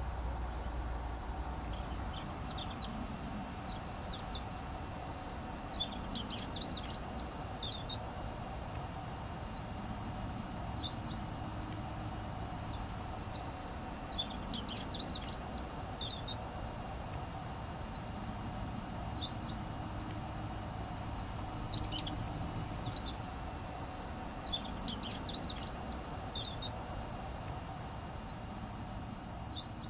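Small birds chirping: many short, high calls scattered throughout, a little louder about three quarters of the way through, over a steady low background noise.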